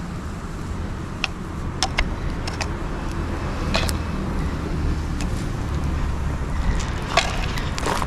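Open wood bonfire of dried shiitake logs and fig branches crackling, with scattered sharp pops over a steady low rumble.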